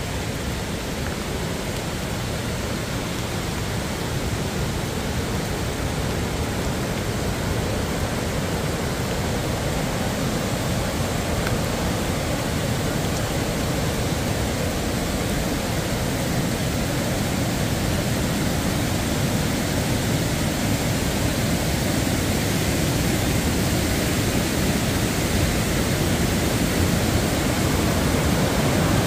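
Rushing white-water mountain river, a steady wash of water noise that grows gradually louder.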